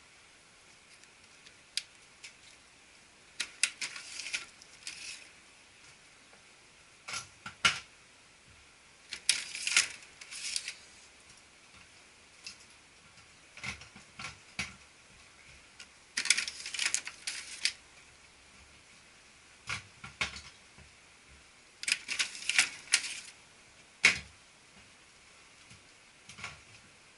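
Sharp plastic clicks and rattles from the imaging units of a Konica Minolta bizhub C252 colour copier as they are unlatched and slid out of the machine one by one. The sounds come in short clusters every few seconds, with quiet between.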